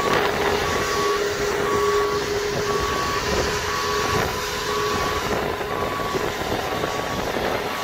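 Boat travel lift's warning alarm beeping about once a second over the steady running of its engine, as it moves a boat in its slings.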